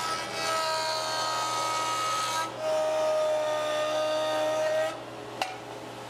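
Ridgid benchtop jointer running with a steady motor whine and cutting hiss as a wooden board is fed across its cutterhead, with a brief dip about halfway through. The sound drops to a faint hiss about five seconds in, followed by a single click.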